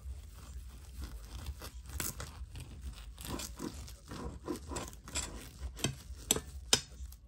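Plastic cling film crinkling and tearing as an onigirazu (nori-wrapped rice sandwich), left wrapped in its film, is cut through with a blade. The sound is a run of irregular crackles, with the sharpest snaps near the end.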